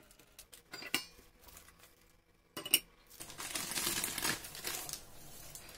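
A frying pan and a plastic cutting board clacking as a pie is flipped out of the pan, with a few soft knocks, then one sharp clack about two and a half seconds in. Parchment paper then rustles as it is peeled off the pie.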